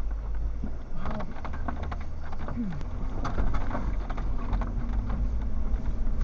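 Jeep driving slowly over a rough, potholed dirt track: a steady low engine and road rumble with frequent knocks and rattles as it goes over the bumps.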